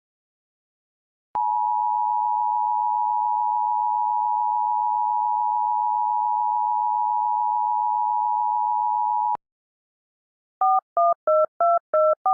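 Emergency Alert System two-tone attention signal: a steady dual-pitch tone held for about eight seconds, starting a second or so in and cutting off sharply. It marks the start of a child abduction emergency alert. About a second later comes a quick run of about eight short two-tone beeps.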